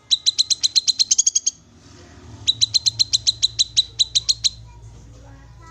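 Cucak kinoi call: two runs of sharp, evenly repeated chip notes, about eight a second and each lasting under two seconds. The first run ends in a quicker, higher trill.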